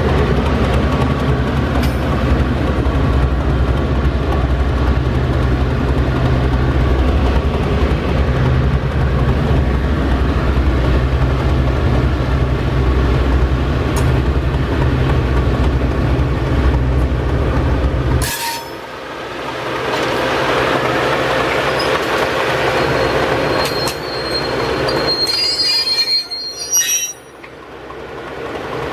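Diesel shunting locomotive 801 running with a heavy low engine rumble while losing power. The rumble stops abruptly about two-thirds of the way through, leaving the rattle and rolling of the moving locomotive. Near the end come a high, steady wheel squeal and a burst of clattering.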